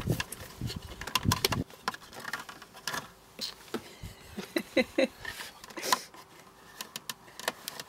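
A small flat-bladed screwdriver prying at a clip-in plastic dashboard air vent, giving irregular clicks, taps and scrapes as the vent slips and is levered out of its clips.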